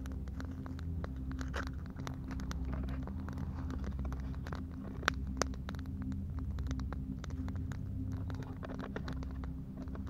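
Wood campfire crackling with scattered sharp pops, the two loudest about five seconds in, over a low steady drone.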